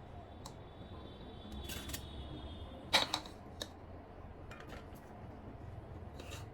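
Scattered sharp clicks and taps, the loudest about three seconds in, over a faint steady high whine that stops just before that loudest click.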